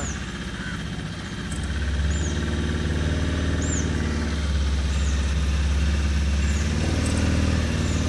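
A boat's motor running steadily, a low, even hum, as the boat moves along the water. A short high chirp repeats about once a second over it.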